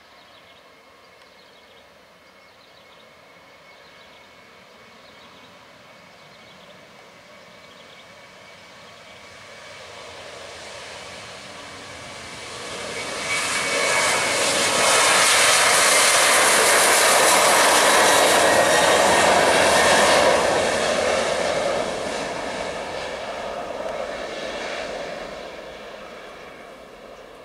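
Jet engine noise from a Boeing 737-900ER's twin CFM56-7B turbofans as the airliner moves along the runway past the listener. It swells slowly, is loudest for about seven seconds past the middle, then fades as the plane moves away.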